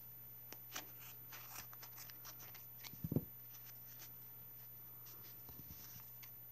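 Scissors snipping through tightly packed wool yarn, a few short, faint crisp snips, with a soft low thump about three seconds in as the yarn bundle is handled. A faint steady hum runs underneath.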